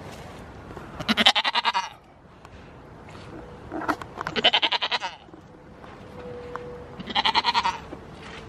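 Goat bleating three times, each call about a second long with a fast wavering quaver.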